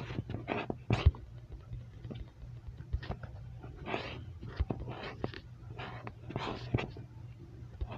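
Fox chewing fish: irregular, wet, noisy bites, a few a second, over a low steady hum.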